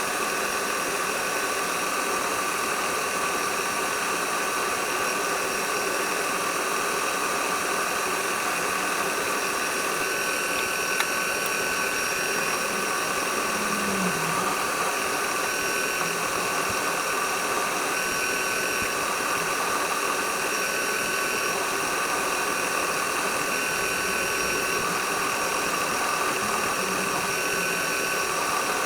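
Small workshop machine's electric motor running steadily at constant speed, a steady whine over an even hiss, with a single light tick about eleven seconds in.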